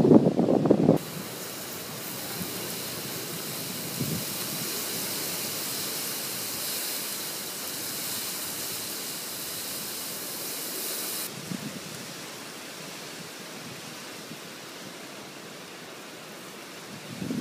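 Torrential rain in a windstorm, a steady hiss. A gust of wind buffets the microphone in the first second, and the hiss softens a little about eleven seconds in.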